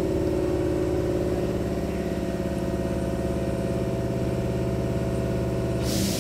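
Steady mechanical hum from a stationary Hankyu train's onboard equipment, standing at the platform with its doors open. Near the end the hum cuts off and a burst of hiss begins.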